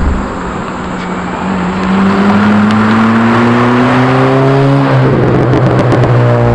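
Hyundai Accent with a straight-piped exhaust accelerating past, its engine note climbing steadily as it nears, then dropping lower as it goes by about five seconds in.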